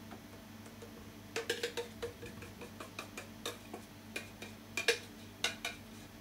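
A metal spoon clinking and scraping against a stainless steel jug as its contents are spooned out into small plastic tubs. The irregular light clicks start about a second in, over a low steady hum.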